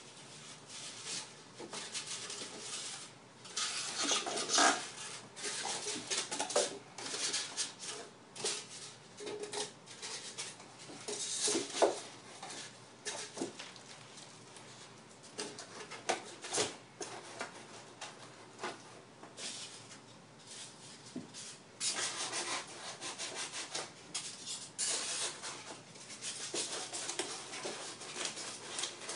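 Foam sheets and a plastic-wrapped item rubbing and scraping against cardboard as they are fitted into a long box. The rustling comes in uneven bouts and goes quieter for a while in the middle.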